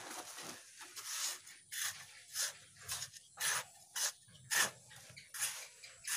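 A hand trowel scraping and scooping through a heap of dry sand and cement as it is mixed, in a run of short rasping strokes about one to two a second.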